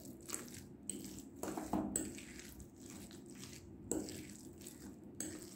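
Metal spoon mixing cooked rice with curd in a ceramic bowl: soft, irregular squishing and scraping, with a few light taps of the spoon against the bowl.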